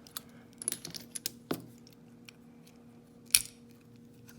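Small metal lock parts clicking and tapping as a pin-tumbler lock is taken apart: a quick run of light clicks about a second in, a click with a short ring, then one sharp louder click near the end.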